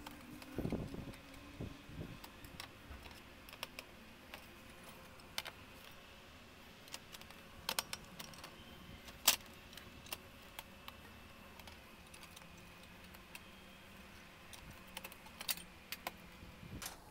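Irregular small clicks and light metal taps from a screwdriver and a steel motherboard shield being unscrewed and handled, with a couple of soft thumps about a second in and one sharper click near the middle.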